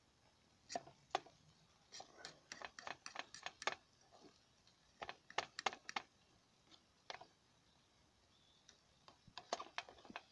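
Metal fork clicking and scraping against a metal mess tin as sausages and beans are turned in it: irregular clusters of sharp little clicks with short pauses between.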